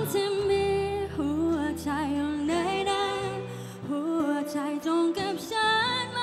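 A woman singing a song live into a microphone, holding long notes with vibrato, over acoustic guitar accompaniment.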